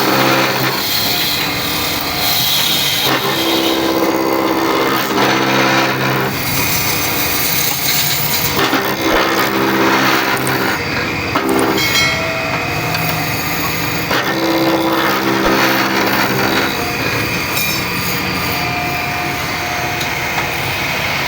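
Wood lathe running as the spinning wooden workpiece is worked: a steady motor hum under the rough, uneven noise of a tool on the wood.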